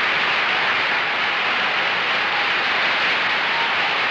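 Studio audience applauding, a dense steady applause held throughout.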